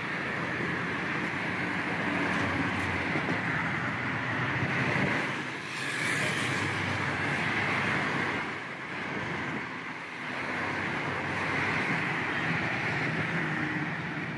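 Steady road traffic on a multi-lane city expressway heard from a moving bicycle: car engines and tyres going by, swelling briefly about six seconds in as a vehicle passes close.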